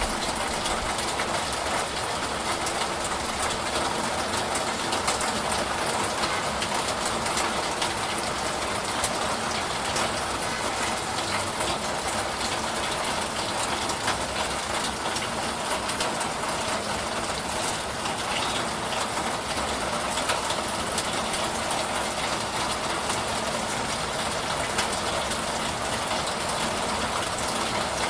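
Steady rain falling, a dense even hiss of drops with fine pattering ticks throughout.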